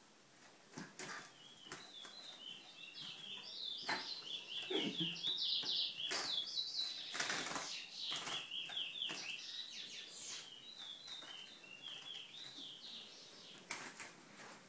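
Caged lesser seed finch singing a long, fast run of short sliding high notes, starting about a second in, loudest in the middle and fading near the end, with scattered sharp knocks from the cage.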